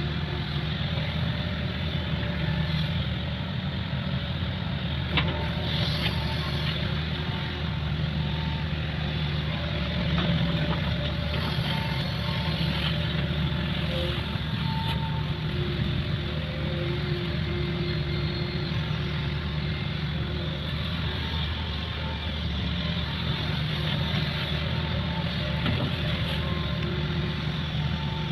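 Excavator's diesel engine running steadily as it digs out a ditch, with a few faint knocks and a sharper knock about five seconds in.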